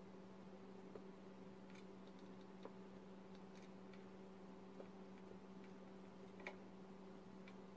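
Near silence: a steady low electrical hum, with about half a dozen faint, short clicks scattered through it while a wire is soldered onto a circuit board.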